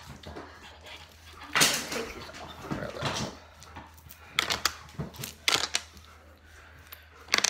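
Hands rubbing and tapping close to the microphone: a couple of loud swishes, then several sharp clicks.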